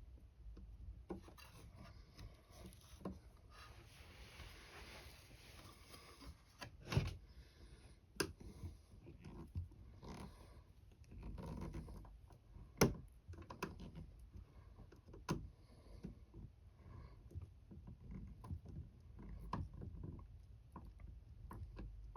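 Hand screwdriver and screws being worked into a camper window frame: scattered light clicks, taps and knocks, with a stretch of scraping about four to six seconds in, as a screw that will not line up is fitted.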